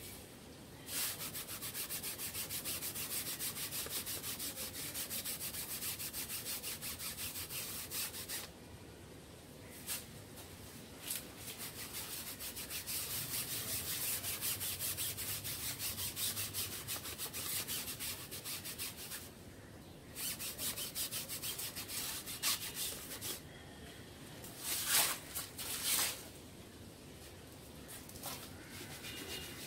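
Steady, rapid rubbing or scrubbing strokes in long runs of several seconds, broken by short pauses, with two short, sharper scrapes near the end.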